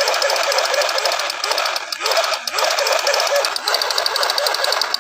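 Toy M60 machine gun firing its rapid rattling sound effect, a fast even burst held for about six seconds that cuts off suddenly at the end.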